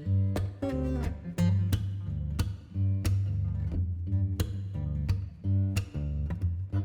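Background music led by plucked and strummed guitar over a steady bass line, with sharp note attacks several times a second.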